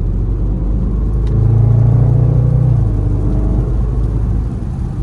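Range Rover Sport SVR's supercharged V8 pulling hard under acceleration, its pitch climbing for a couple of seconds and then easing off, over a steady low rumble of the moving car.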